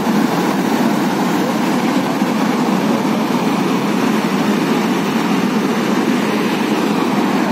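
Steady roar of a mud- and stone-laden flash flood rushing down a mountain stream channel after a cloudburst.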